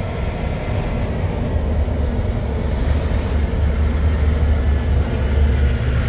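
Steady low rumble of engine and tyre noise heard inside a moving car's cabin.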